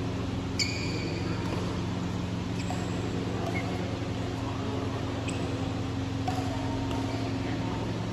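Steady low hum of a fan running in a sports hall. About half a second in there is a short, sharp high-pitched squeak, followed later by a few faint ticks.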